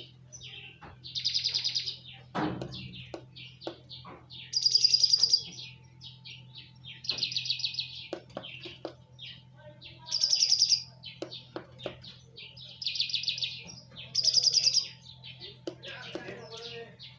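Birdsong: a bird repeats a loud, fast, high trill about six times, each under a second long, with softer short chirps from other birds in between.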